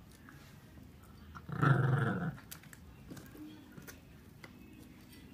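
Small fluffy dog growling once, a low growl just under a second long, while it noses and paws at a bedsheet. A few faint clicks or scratches follow.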